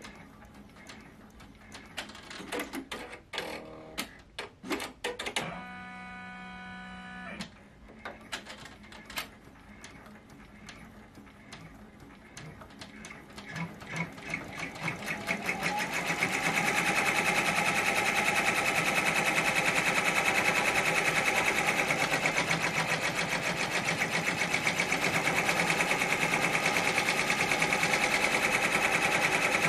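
Multi-needle embroidery machine. First come scattered clicks and knocks as the hoop is fitted back on, with a steady tone lasting about two seconds. About fourteen seconds in the machine starts up, speeds up and settles into fast, even stitching: it is stitching out the rest of the freestanding lace design on water-soluble stabilizer.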